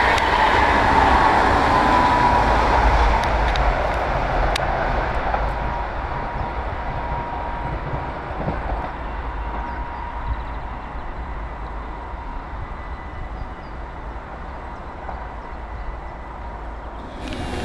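Electric passenger train running past on the line, its rumble and wheel noise fading steadily as it moves away, with a faint steady whine in the first part.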